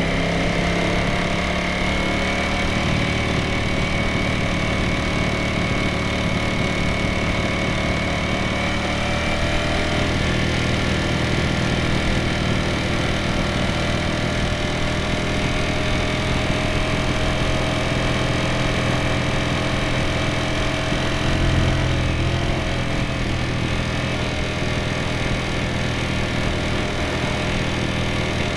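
Ducati Streetfighter V4S 2025's V4 engine and exhaust running steadily while the bike is ridden, the engine note drifting slowly up and down with small throttle changes. There is a brief louder swell about three-quarters of the way through.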